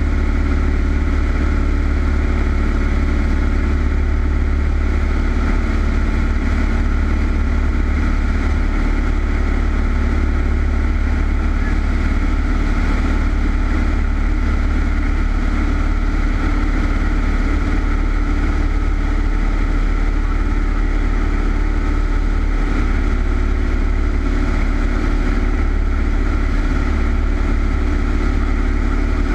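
Single-engine Cessna's piston engine and propeller running with a steady, unchanging drone in flight.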